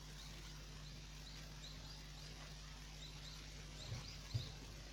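Faint, short, high chirps repeating about twice a second over a steady low electrical hum, with two soft low knocks near the end.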